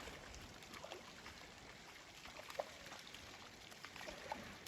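Faint creek water running over rocks, with a few small plinks of water.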